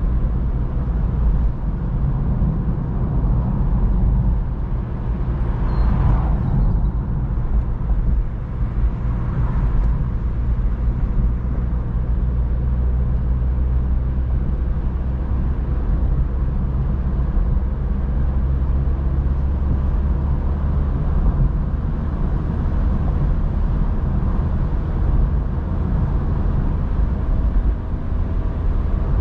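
Mazda MX-5 NC's 1.8-litre four-cylinder petrol engine running steadily at a calm cruise, with tyre and road noise, heard from inside the open cockpit. Two brief whooshes rise over it about six and ten seconds in.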